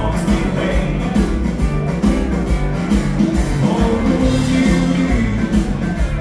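Live dance band playing an upbeat dance number with electric guitars, keyboard, bass and drum kit, driven by a steady drum beat.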